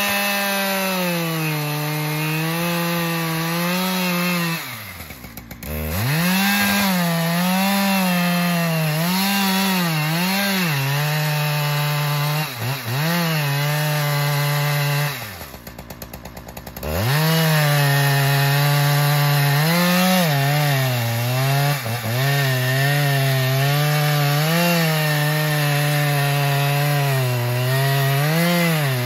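Large professional two-stroke chainsaw cutting into the base of a thick dead pine trunk, its engine held high under load. Twice the engine falls away to idle, about five seconds in and again about halfway through, then revs back up into the cut.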